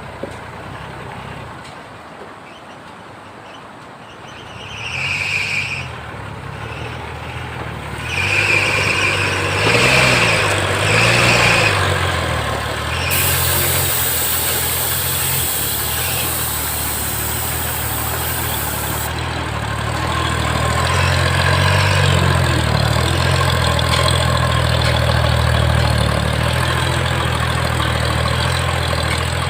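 Old ZIL truck's 5.5-litre six-cylinder petrol engine working hard under a full load of stones, revving in several surges, each early surge with a short high whine, then pulling steadily and louder on a steep climb.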